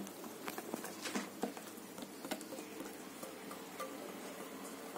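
Silicone spatula scraping and tapping stiff whipped egg-white cloud bread batter out of a glass bowl onto a baking tray: faint, scattered soft clicks and taps.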